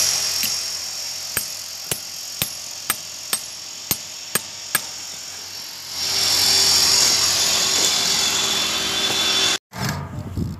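Hammer striking a steel chisel held against a concrete curb, chipping it: about nine sharp strikes, roughly two a second, over steady background noise. About six seconds in, a louder steady mechanical noise sets in and runs for a few seconds.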